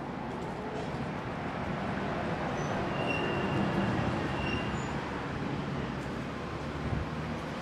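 Road traffic passing on a busy city street: a steady rush of tyres and engines, swelling a little about three to four seconds in.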